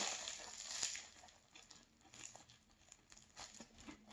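Faint crinkling and tearing, loudest in the first second, as a light, fluffy chocolate pastry is squeezed and pulled apart by hand, followed by a few small scattered crackles.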